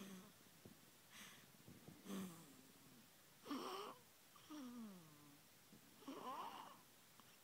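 Sleeping newborn baby's soft grunts and squeaks: about six short, noisy breath sounds with brief pitched whimpers, one gliding down in pitch just after the middle.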